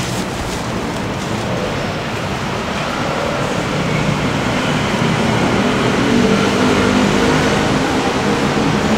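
Street traffic noise, with a vehicle's engine growing louder over the second half.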